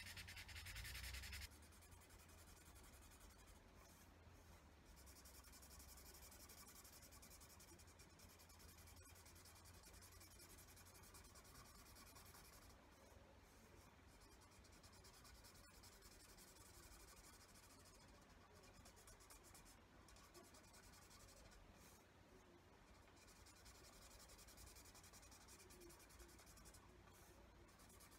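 Faint, steady scratching of a pen colouring in on paper, with a short louder rustle at the start.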